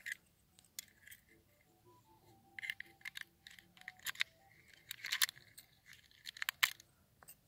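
Key being pushed into and turned in a small brass padlock: a series of sharp metallic clicks and short scrapes, with the keyring jingling, the loudest clicks in the second half.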